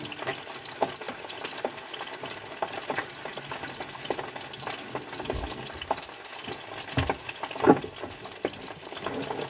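Sea bream frying in a pan, sizzling steadily, with scattered small clicks and a few louder knocks, the loudest about seven and a half seconds in.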